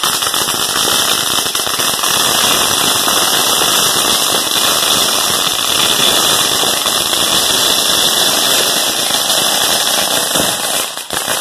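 Ground firework burning on the pavement with a loud, steady crackling hiss that dies down near the end.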